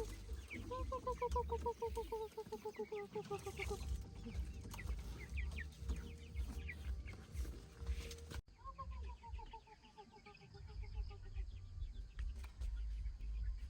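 Chickens calling: a rapid run of short notes that slides slowly down in pitch, heard twice, over a steady low rumble.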